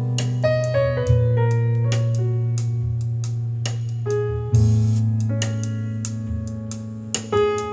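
Music played back through a pair of Sony SS-CM3 bookshelf speakers, each with a 4.5-inch paper-cone woofer and a paper-cone tweeter. The music has a keyboard melody stepping over a deep sustained bass, with light percussion hits.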